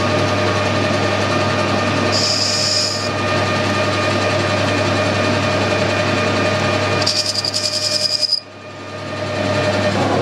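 Metal lathe running steadily with a mild steel bush turning in the chuck. Twice the cutting tool is fed onto the work to break the two sharp edges, each cut a high-pitched squeal lasting about a second. Near the end the level drops suddenly and climbs back.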